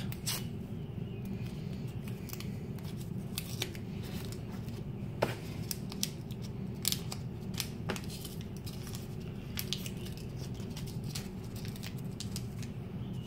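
Small packet of a screen-cleaning wet wipe being handled and opened: scattered sharp clicks and crinkles, over a steady low hum.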